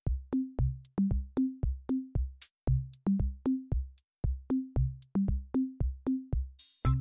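Outro music: a drum-machine beat of short, pitched electronic drum hits, about four a second, with a brief hissing swell just before the end.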